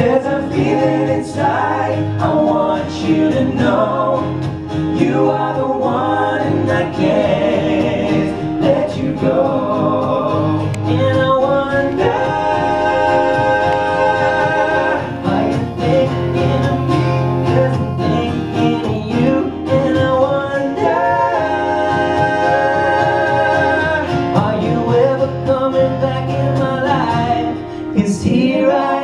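Live pop music from a male vocal group with guitar and band, the voices holding long sung notes.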